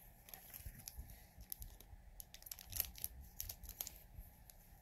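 Small plastic pin wrapper crinkling and tearing as it is handled and opened: faint, irregular crackles.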